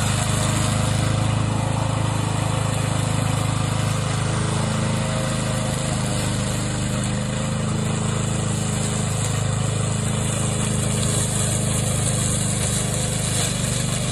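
Remote-controlled tracked mower's engine running steadily under load as the machine drives and cuts through tall grass and reeds.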